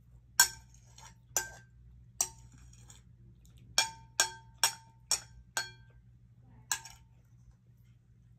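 Spoon and fork clinking against a plate, about nine sharp, ringing clinks with a quick run of five in the middle.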